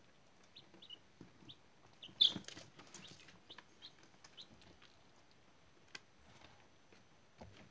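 Brood of two-day-old chicks peeping softly, with scattered short high peeps. The loudest is a sharper peep about two seconds in.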